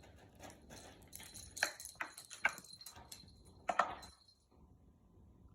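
A cat playing hard with a toy, making a run of sharp clattering knocks and rattles, four of them loudest, that stop a little past four seconds in.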